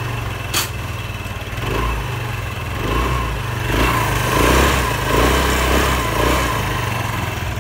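Piaggio Liberty scooter's single-cylinder four-stroke engine running steadily, freshly rebuilt with a new piston after losing compression, and running quietly. The sound swells somewhat in the middle, and there is a sharp click just after the start.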